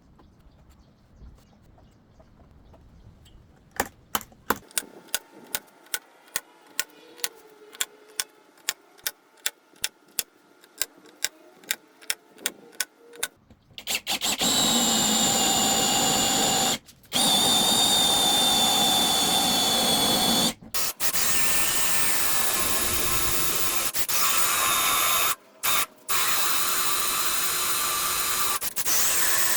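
A run of sharp clicks, about two a second, then a power drill running steadily with a high whine, stopping briefly a few times.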